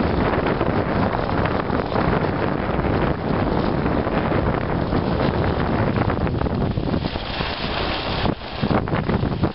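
Wind rushing over the microphone on a moving dog sled: a steady, loud noise that dips briefly about eight seconds in.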